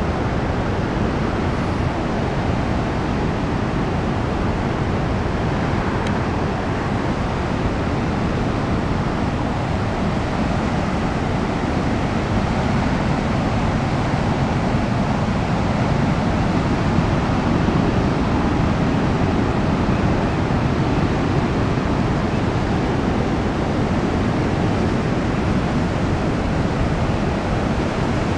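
King-tide ocean surf: waves breaking and sheets of foamy water washing up over a flat beach, a steady rushing wash that swells a little about halfway through.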